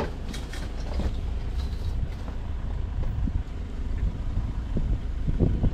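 Low, uneven rumble of a game-drive vehicle's engine, with a few faint high chirps in the first two seconds.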